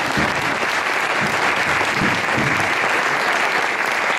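Audience applauding: a steady round of clapping from a seated crowd.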